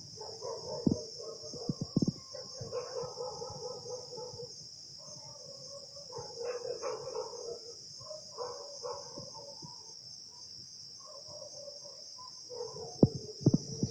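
Many dogs barking together in overlapping bursts, with a steady high chirring of insects underneath. A couple of sharp, loud sounds stand out about a second before the end.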